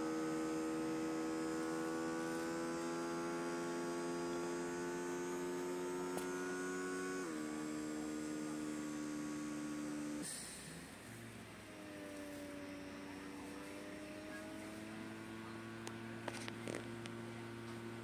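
Small air pump of a pneumatic finger-rehabilitation glove running with a steady, pitched hum as it works the bellow actuators that flex and open the fingers. Its pitch steps about seven seconds in; about ten seconds in it cuts out with a short hiss of air, then starts again more quietly at a different pitch.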